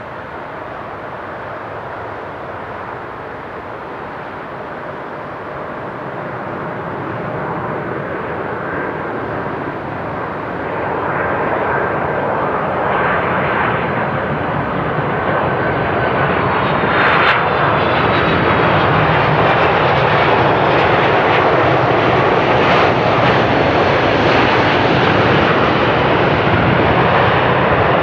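Boeing 767-300ER twin-engine jet on approach to land, its engine noise growing steadily louder as it comes closer. A faint whine slides slightly lower in pitch as it nears.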